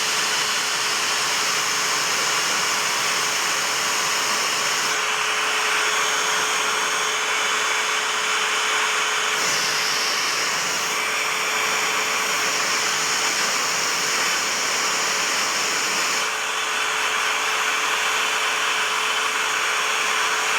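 Electric heat gun blowing steadily, shrinking heat-shrink tubing onto a speaker cable: an even rush of air with a faint steady hum underneath.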